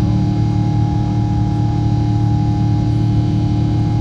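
Airliner's jet engines running at climb power, heard inside the cabin from a seat beside the engine: a loud, steady drone with a low hum and a few constant tones.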